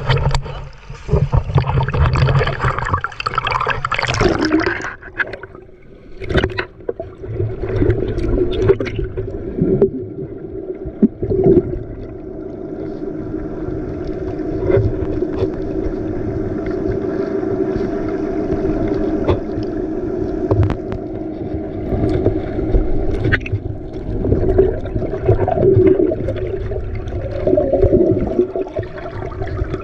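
Small boat's engine running steadily, with water sloshing and splashing against the hull; the splashing is loudest in the first few seconds, after which the steady engine drone takes over.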